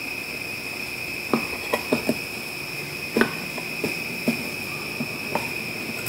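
Screwdriver working a screw on a metal outlet box and cover: a series of irregular short metal clicks and ticks, over a steady high-pitched whine.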